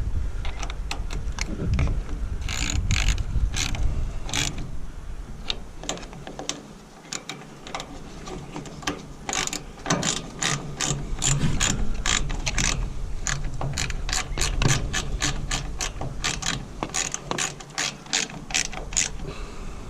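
Ratchet wrench clicking in runs of quick clicks, working fasteners on the wood chipper's small engine.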